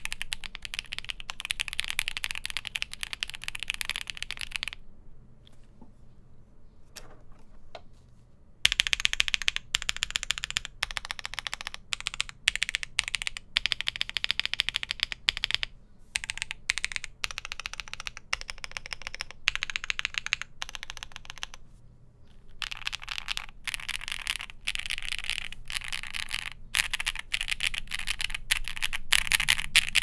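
Typing on a 60% mechanical keyboard fitted with Akko V3 Pro switches: fast runs of keystrokes. The typing drops to a few scattered clicks for about four seconds, about five seconds in, then resumes in runs with short breaks.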